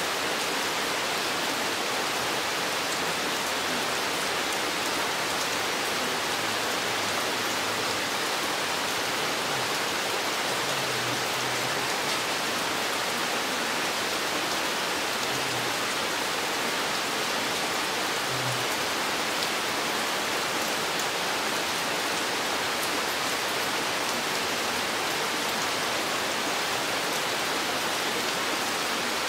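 Steady rain falling in a forest: an even, unbroken hiss of many drops.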